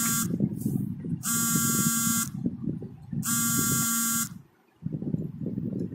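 An electronic buzzer sounding three times, each buzz about a second long and about two seconds apart, over low rustling.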